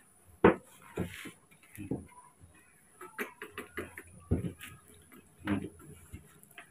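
Scattered knocks and clicks of handling, with a sharp thump about half a second in. Around the middle comes a run of small clicks as plastic feeding bottles are lifted out of a plastic cup and knock against it.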